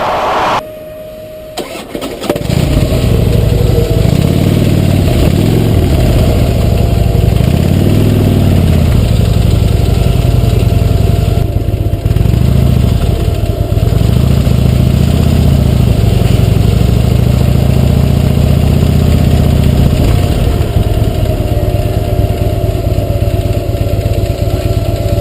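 Motorcycle engine starting about two seconds in, then running loudly with its pitch rising and falling with the throttle, steadier near the end.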